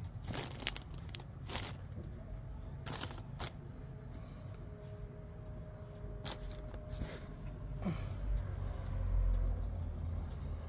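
Close-up handling sounds: scattered short clicks and rustles as a blue hair tie is waved and tossed for a cat on a bedspread, with a low rumble of handling noise on the phone microphone about eight seconds in.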